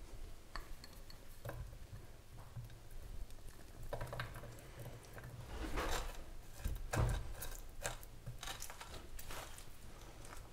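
Berries dropped into a glass baking dish, then crushed with a metal fork, the tines clicking and scraping on the glass. The loudest scrapes come about six and seven seconds in, followed by a run of short clicks.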